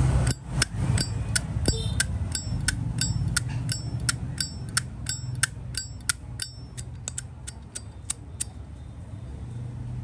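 Zippo lighter's hinged lid being flicked open and snapped shut over and over: about three sharp metallic clicks a second, each with a short ringing tone, stopping about eight and a half seconds in.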